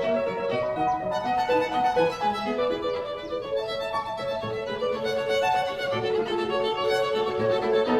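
Background music led by violin, a melody of short changing notes over a lower accompaniment.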